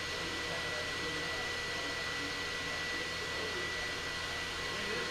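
Steady industrial machinery noise: a constant hiss and hum with a thin, high, unchanging whine running through it.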